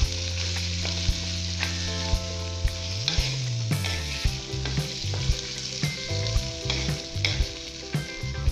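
Boiled jackfruit seeds and carrot cubes sizzling in hot oil while being stirred, with the spatula knocking and scraping against the pan at irregular moments. Low steady tones run underneath, one gliding downward about three seconds in.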